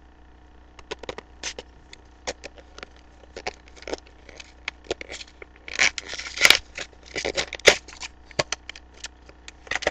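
A small toy package being handled and opened by hand: scattered clicks and scrapes, with longer rustling stretches about six seconds in and again about seven to eight seconds in.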